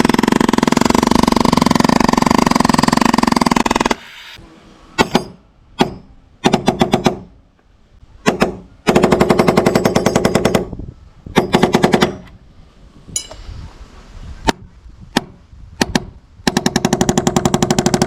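Cordless impact driver driving a long screw, hammering in rapid strikes: one continuous run of about four seconds, then a series of short bursts with pauses, the last burst starting near the end.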